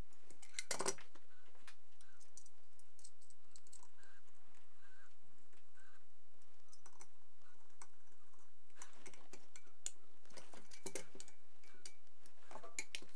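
Screwdriver turning a screw in the metal upper handguard of a Vityaz-SN submachine gun: light metallic clicks and ticks, in a cluster about a second in and several more over the last few seconds.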